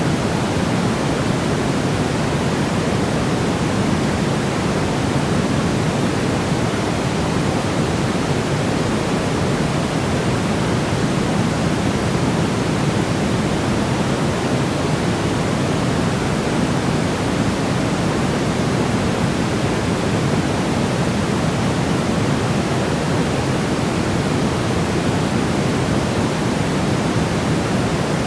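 Steady white noise for infant sleep: an even, unbroken hiss with a deeper, fuller low end, holding constant throughout.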